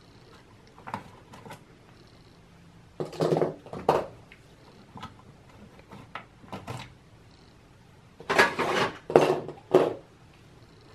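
Memory modules being unlatched and pulled from their motherboard slots: short plastic clicks and rasping scrapes, loudest in two bursts about three seconds in and again near the end.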